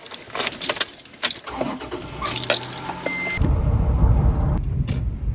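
Key and ignition clicks in a Toyota pickup as its engine is started and settles to a faint idle hum. About three seconds in, this gives way to the loud low rumble of the truck driving, heard from inside the cab.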